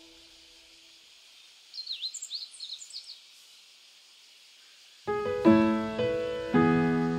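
A bird sings a short burst of quick rising and falling chirps about two seconds in, over a faint steady hiss. About five seconds in, background piano music starts with loud, ringing chords.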